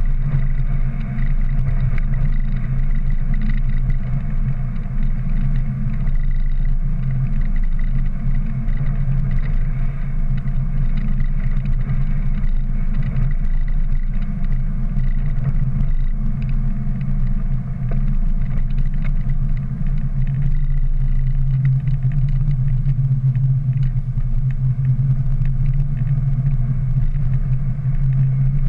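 Ford Ranger pickup driving at a steady speed, heard from inside the cab: a steady low drone of engine and road noise.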